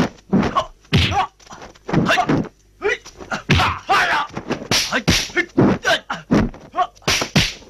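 Kung fu film fight sound effects: a rapid series of dubbed punch and kick impacts, about two to three a second, mixed with the fighters' shouts and grunts.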